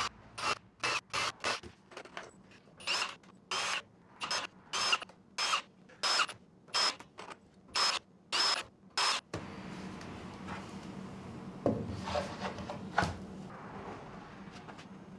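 A run of short scraping strokes, about two a second and unevenly spaced. After about nine seconds they stop, and a steady low hum follows with two knocks.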